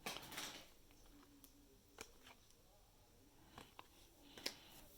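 Near silence, with a soft rustle at the start and a few faint light clicks from trading cards being handled.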